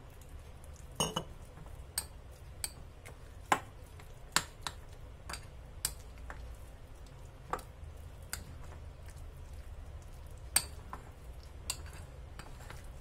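Steel spoon stirring thick semolina and yogurt batter in a glass bowl, clinking against the glass: a dozen or so sharp clicks at irregular intervals.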